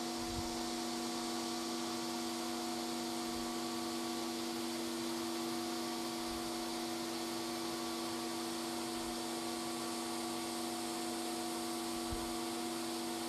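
Surgical smoke evacuator running, its nozzle held at the treatment site: a steady airy rush of suction with a constant hum and a few steady higher tones beneath it.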